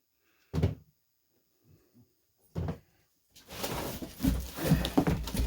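A cardboard shipping box being flipped over and handled: two dull thumps about two seconds apart, then a run of knocking, scraping and rustling from about three and a half seconds in.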